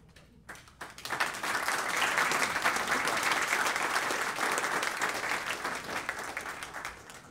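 Audience applauding: a few scattered claps at first, building within about a second to full applause, which tapers off near the end.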